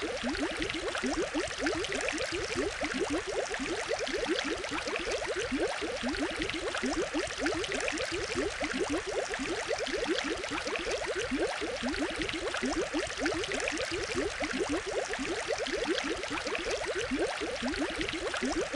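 Aquarium water bubbling: a steady, dense stream of small bubbles, each a short rising blip, over a constant watery hiss.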